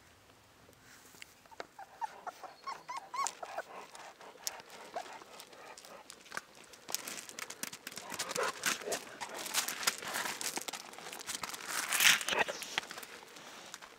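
A young Cane Corso puppy whimpering in a run of short, high squeaks a few seconds in, then loose gravel crunching and rattling underfoot from about halfway, loudest near the end.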